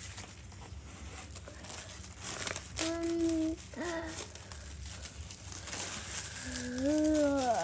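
Packaging wrap crinkling and rustling as it is unwound by hand. A child's short wordless vocal sounds come about three seconds in and again near the end.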